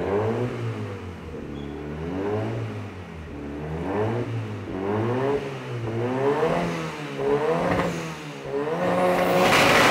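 Toyota MR2 Turbo's engine being revved hard in short repeated blips, each one rising and falling back, about six in a row. Near the end a longer rev is held high, the loudest part, with a harsh noisy edge.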